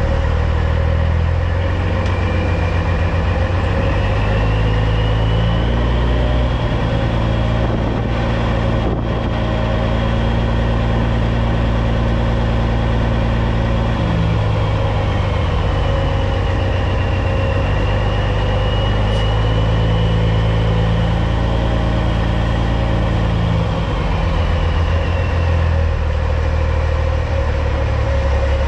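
CAT C15 diesel in a 2006 Peterbilt 379 running under light throttle. It picks up revs about six seconds in, holds them, and drops back, then does so again. A thin high whistle rises and falls with the revs.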